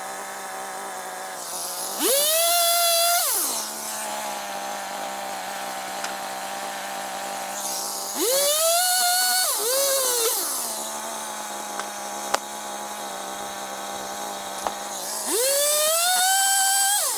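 Two-stroke gas chainsaw idling, then revving up to cut boards three times, each burst lasting a second or two before it drops back to idle.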